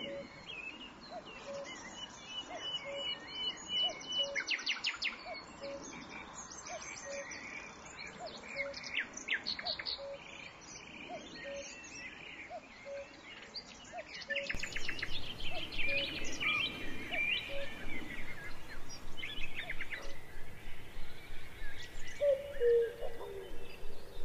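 Several birds chirping and trilling, with a soft single note repeated about once a second beneath them. About halfway through, the sound changes abruptly and becomes louder and busier with chirps.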